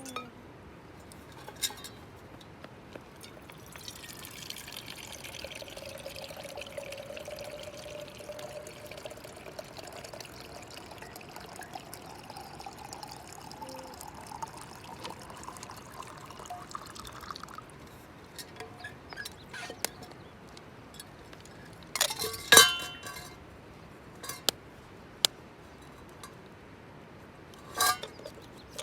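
Liquid poured steadily into a container for about thirteen seconds, its pitch rising as the container fills. A few sharp clinks of glass or metal follow later, the loudest a cluster near the end.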